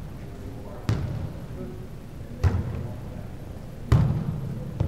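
A volleyball thudding as it is hit and bounces in a large gymnasium: four sharp thuds a second or so apart, each echoing in the hall, the loudest about four seconds in.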